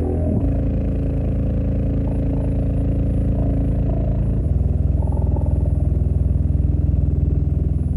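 Deep bass played through a 12-inch subwoofer in a box: sustained low notes that shift about half a second in and again about four and a half seconds in, with a fast throbbing in the second half.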